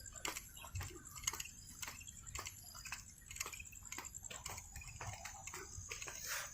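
Faint night ambience: a steady high-pitched insect trill, with irregular soft clicks and ticks several times a second.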